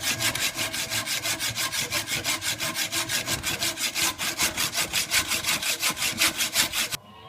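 Hand sawing with quick, even, scratchy strokes, about five or six a second, that stops abruptly near the end.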